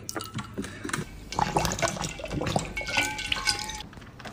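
Young Weimaraner lapping water from a stainless-steel dog bowl: quick, irregular wet laps and splashes.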